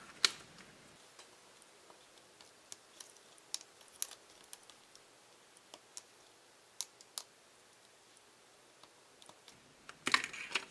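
Faint, scattered clicks and ticks of a weeding hook picking cut heat-transfer vinyl off its clear plastic carrier sheet, with a short run of louder crinkling near the end as a scrap is lifted away.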